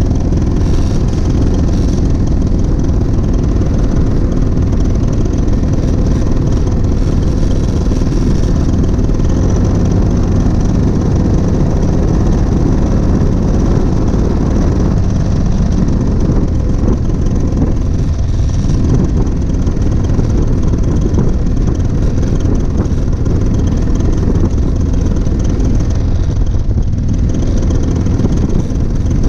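Paramotor engine and propeller running steadily in flight, loud and close to the microphone.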